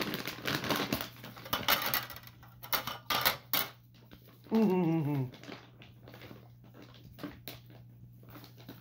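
Crinkly plastic bag of rabbit pellets rustling for the first few seconds, then a short voice sound falling in pitch about halfway through. After that come scattered light clicks and clacks from the plastic treat-puzzle tray as the rabbit noses at it.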